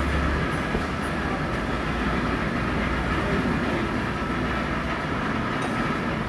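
Cylinder head resurfacing machine running steadily: a constant mechanical din with a faint steady whine.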